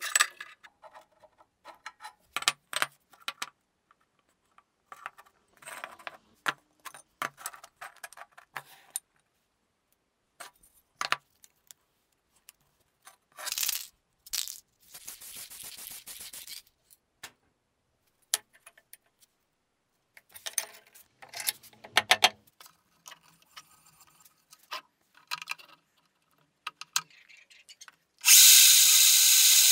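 Cut pieces of steel angle iron being handled, with scattered clinks and small clanks of metal on metal, and a hiss lasting about three seconds midway. Near the end a drill press starts up and runs steadily.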